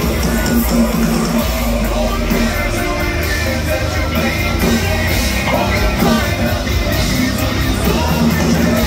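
A hard rock band playing loud live through a festival PA, heard from the crowd: heavy guitars, bass and drums with a lead singer's sung and yelled vocals over them.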